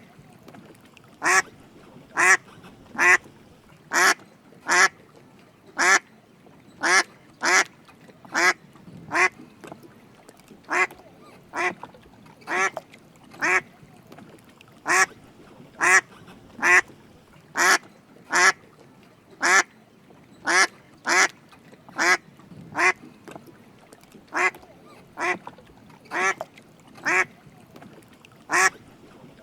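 Drake mallard quacking: short calls repeated over and over, about one or two a second at uneven spacing, some louder than others.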